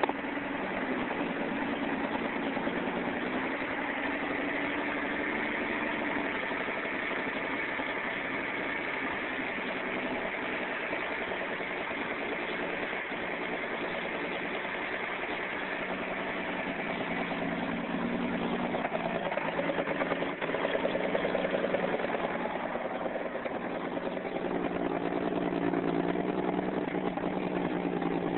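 1959 GMC 100 pickup's engine idling steadily, a little louder for a few seconds past the middle.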